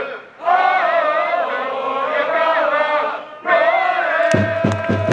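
Football supporters chanting a song together in unison, mostly male voices, in two long sung phrases. A drum starts beating rapidly about four seconds in.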